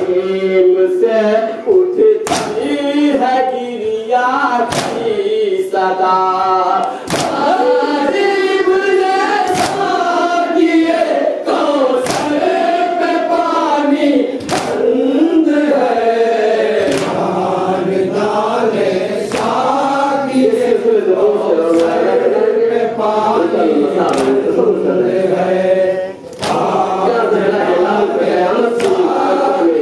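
A group of men chanting a noha, a Shia Muharram mourning dirge, in unison. Sharp beats about every two and a half seconds keep time.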